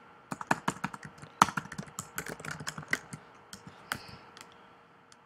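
Typing on a computer keyboard: a run of quick, uneven key clicks that thins out and stops about four seconds in.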